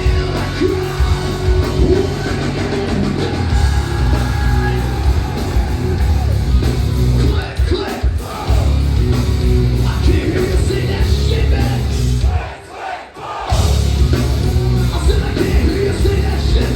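Live hard rock band playing loud, with heavy drums and bass, distorted guitars, shouted vocals and a yelling crowd; the band drops out for about a second near two-thirds of the way through, then comes back in.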